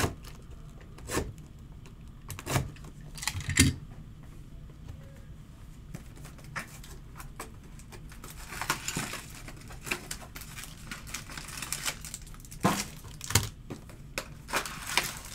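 Handling noise at a table: scattered light knocks and clicks, with a short stretch of rustling about nine seconds in.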